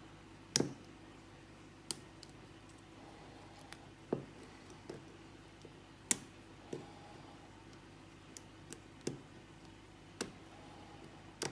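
Lockwood 334B45 padlock being single-pin picked with a hook pick under tension: about a dozen faint, sharp clicks at irregular intervals as pins are lifted and set. Several clicks come off the same pins, which the picker takes for serrated pins, with the core sitting in a false set.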